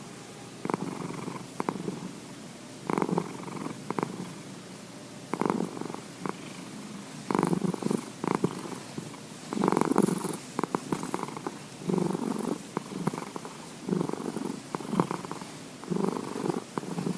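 Domestic cat purring continuously, swelling louder and fading with each breath about once every one to one and a half seconds.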